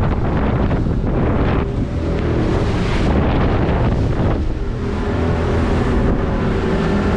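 Wind buffeting the microphone and water rushing along the hull of a fishing boat under way on outboard power. The outboard's steady drone comes through more clearly in the second half.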